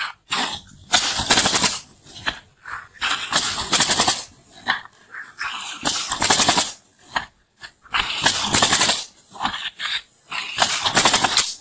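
Pneumatic coil roofing nailer bump-fired into asphalt shingles, giving quick rattling bursts of nail shots. The bursts come about every one to two seconds, with short pauses between them as the roofer moves along the row.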